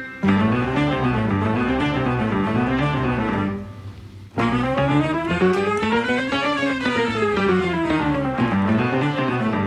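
Background instrumental music with guitar and a walking bass line; it drops out briefly around the middle, then comes back in.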